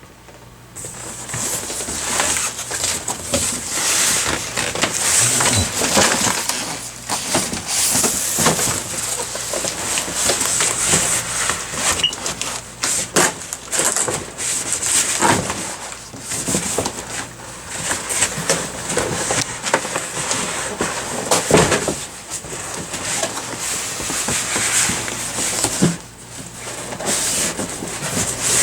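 Packaging rustling and crinkling, with many scattered clicks and light knocks, as parts are handled and pulled out of a shipping box.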